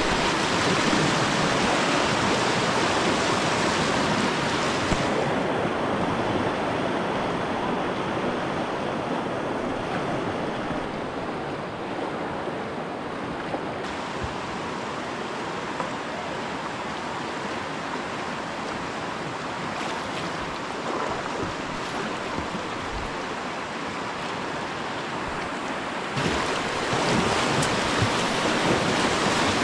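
River rapids rushing steadily, an unbroken wash of whitewater. It is a little quieter through the middle and louder again near the end.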